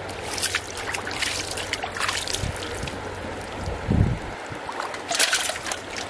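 Shallow muddy water splashing as a caught fish is held in it by hand: short spells of splashing near the start, about two seconds in and about five seconds in, with a dull thump near the middle.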